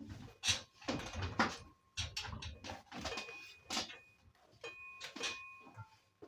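Irregular clattering and knocks, as of things being handled, with a faint steady high tone in the second half.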